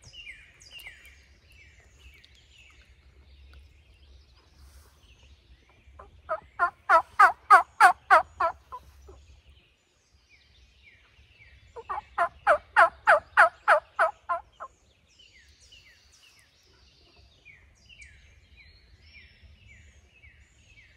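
Two loud turkey gobbles, each a rapid rattling run of notes about two seconds long, a few seconds apart. A small bird's short descending chirps repeat faintly throughout.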